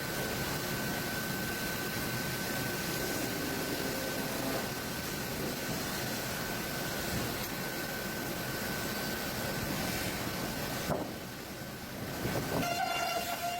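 Steady machinery noise with a constant high hum. It dips briefly near the end, then a new steady pitched tone with overtones comes in.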